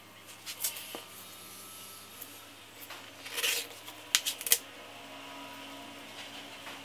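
Fabric handling on a cutting mat: folded strips of fabric rustle as they are smoothed and turned over. A louder rustle comes about three and a half seconds in, followed by a few sharp clicks as the quilting tools are handled.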